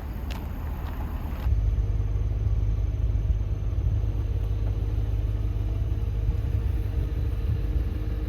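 Low, steady rumble of a running car. It starts suddenly about a second and a half in and cuts off abruptly at the end.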